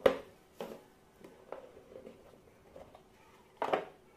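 A cardboard jigsaw puzzle box being handled and opened: a sharp knock right at the start, a few soft taps and rustles, then a louder rustle near the end as the lid comes off.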